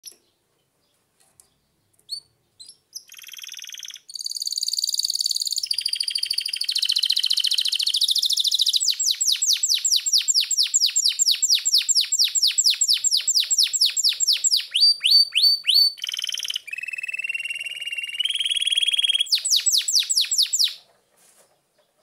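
Domestic canary singing: a few short chirps, then a long unbroken song of high trills, with a long stretch of fast, evenly repeated falling notes in the middle. The song stops about a second before the end.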